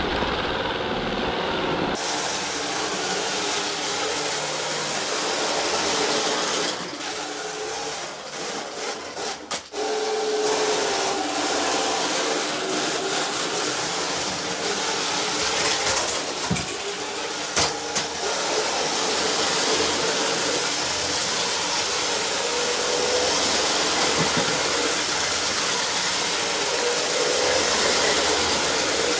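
Motorised Lego-brick model train running on plastic track: the steady whirr of its small electric motors with the wheels rattling over the track. The sound dips and wavers about a quarter of the way in, and two sharp clicks come a little past the middle.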